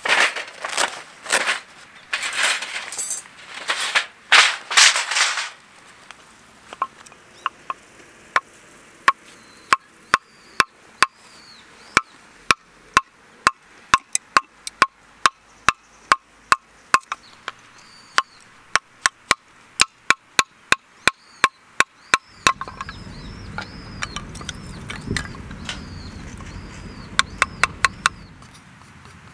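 Wood being worked for a campfire: a handful of rough, noisy strokes, then a long run of sharp clicks and knocks, about two or three a second. Small birds chirp, and a low steady rumble comes in for a few seconds near the end.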